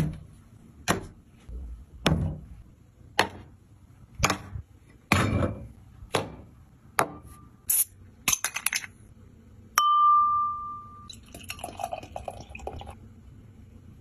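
Sharp knocks about once a second, then quick metal-on-glass clicks as a beer bottle is pried open with a cleaver, ending in a loud clink that rings on briefly. Near the end, beer pours into a glass for about two seconds.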